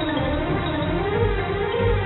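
Instrumental background music, with repeated low bass notes under a melody that slides up and down.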